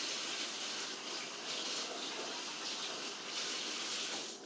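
Kitchen tap running water while a batter spoon is rinsed clean, the flow shut off near the end.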